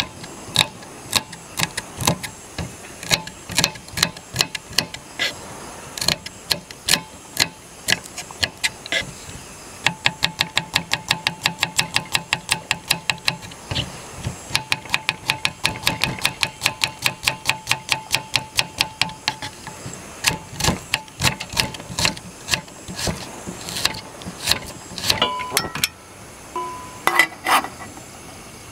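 Knife chopping vegetables on a wooden cutting board: sharp blade-on-wood knocks, uneven at first, then a fast even run of about five a second about ten seconds in, slowing and thinning later. A few short ringing clinks near the end.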